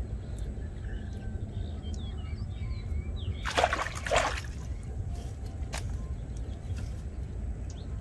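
Hands splashing and sloshing in shallow muddy pond water, two quick splashes close together about halfway through, with small birds chirping in the background.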